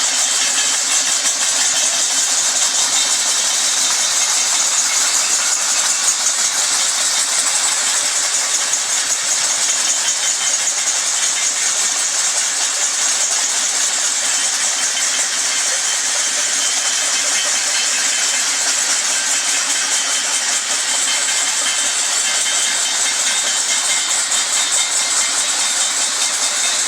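A large group clapping steadily and continuously, with bells ringing through the clapping.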